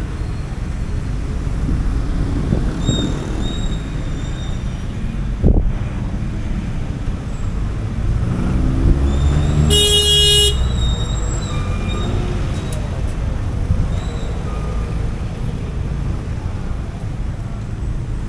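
Street traffic with vehicle engines running steadily. An engine note rises just before a single short vehicle-horn blast about ten seconds in.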